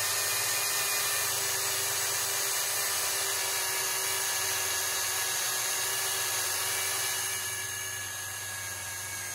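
Cordless drill spinning a foam buffing pad against the painted shell of a motorcycle helmet, a steady motor whine as the pad buffs through the top coat of paint. It eases off and gets quieter about seven and a half seconds in.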